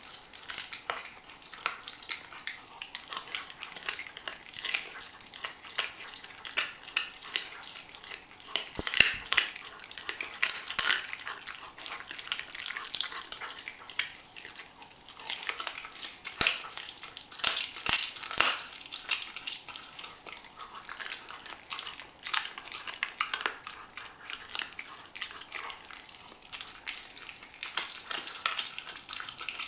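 A Weimaraner puppy gnawing and chewing a raw chicken wing: a steady run of irregular wet crunches and sharp cracks.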